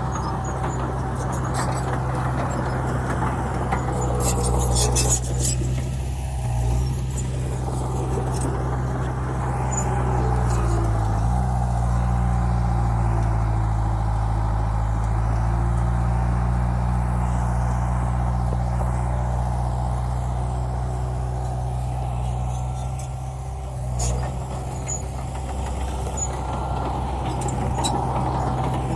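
Heavy diesel engine of earthmoving equipment running steadily, its pitch dipping and then climbing again about ten seconds in, with a few short hisses about five seconds in.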